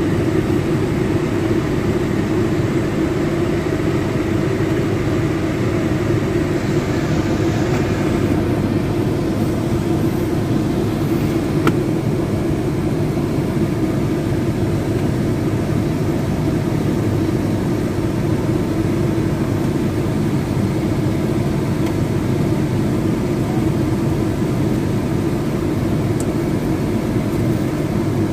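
A steady mechanical hum and rumble that holds even and unchanging throughout, with one faint click about twelve seconds in.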